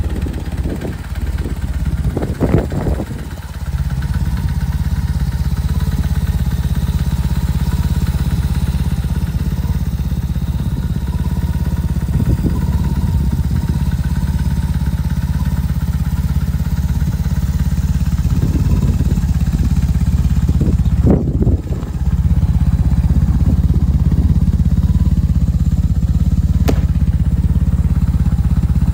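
2004 BMW R1200C's air- and oil-cooled boxer twin idling steadily, with brief irregular noises about two and a half seconds in and again about twenty-one seconds in.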